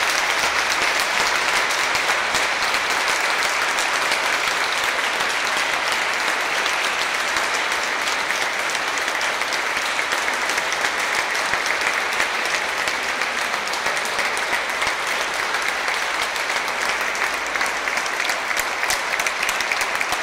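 A congregation applauding steadily, a long unbroken round of clapping.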